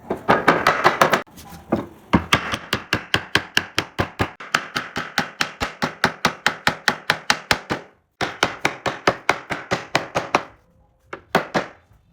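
Rapid, evenly spaced blows of a hand tool on wood, about five a second, in several runs with short pauses between them.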